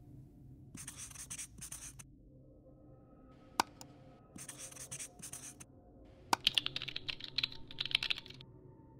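Outro sound effects: a marker pen scratching in two short strokes, a single mouse click about three and a half seconds in, more marker scratching, then a quick run of keyboard typing.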